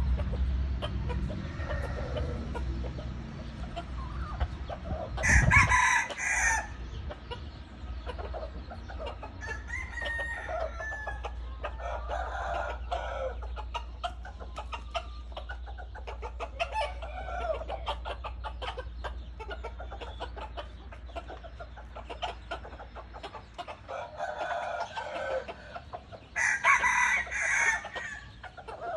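Red junglefowl roosters clucking and calling, with two loud crows, one about five seconds in and one near the end.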